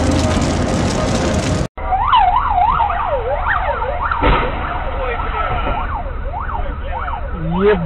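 An ambulance siren wails, its pitch sweeping quickly up and down, in thin, muffled dashcam audio, after the intro's low rumble cuts off abruptly under two seconds in. A brief low steady tone sounds near the end.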